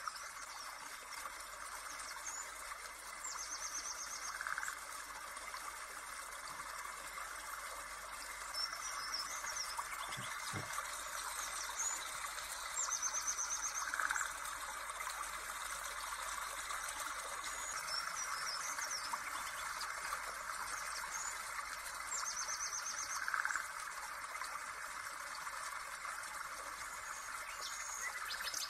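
Birds chirping and trilling over a steady hiss. The same pattern of calls comes back about every nine to ten seconds, as in a looped nature-sound track.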